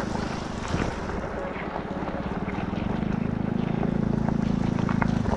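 Motorcycle engine running under way, with a rapid even pulse; it gets louder about three seconds in as the engine is opened up. Wind rushes on the microphone.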